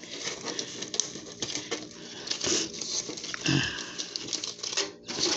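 Light crinkling and irregular clicking of medicine packaging being handled.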